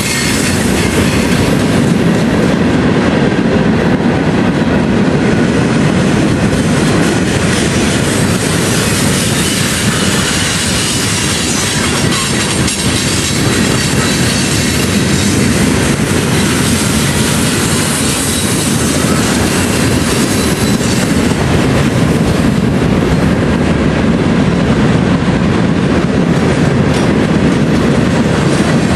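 CSX freight train's tank cars and covered hoppers rolling past close by: steady rumble and clatter of steel wheels over the rail.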